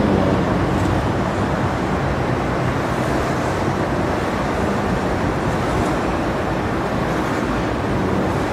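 Steady, fairly loud background noise: a low rumble and hiss with no distinct events.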